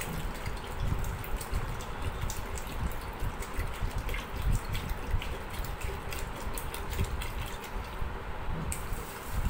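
Water poured in a steady stream from a plastic bottle into a steel bowl of lentils set to soak, with splashing and small drips. The pour breaks off about eight seconds in.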